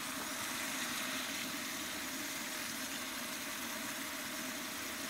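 Large aluminium stockpot sizzling steadily as onions fry in it over a wood fire.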